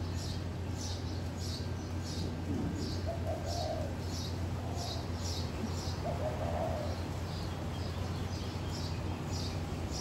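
A small bird chirping over and over, about two short high notes a second. A dove coos softly twice, about three and six and a half seconds in, over a steady low hum.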